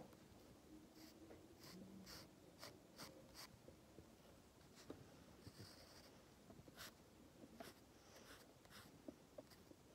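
Faint scratching of a pencil drawing on sketchbook paper, in a dozen or so short, irregular strokes.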